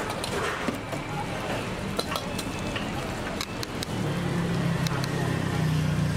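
Faint sizzling from a roti stall's flat griddle, with a few sharp clicks of utensils against the metal cart. A steady low hum joins about four seconds in.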